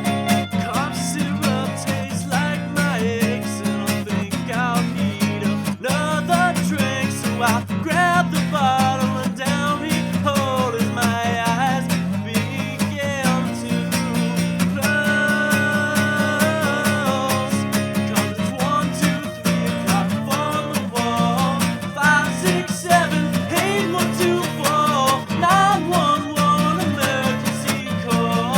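A song played on strummed acoustic guitar, with a sung melody wavering above the chords.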